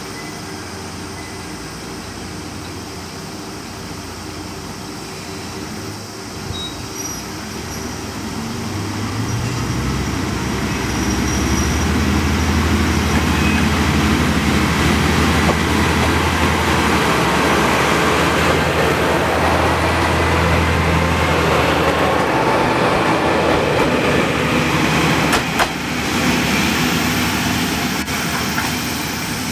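Kanto Railway KiHa 2100 two-car diesel railcar set idling at the platform, then its diesel engines rev up as it pulls away. The engine drone and the rumble of wheels on the rails grow loud as the train passes, with a sharp click near the end, then ease off as it moves away.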